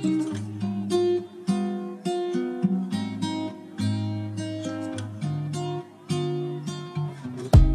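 Background music: strummed acoustic guitar playing a run of chords, with a louder, sharper-struck part coming in at the very end.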